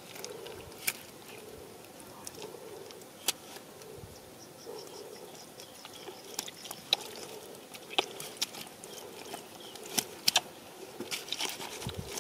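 Hands digging in wet mud, giving scattered small clicks and squelches, over a faint, wavering insect buzz.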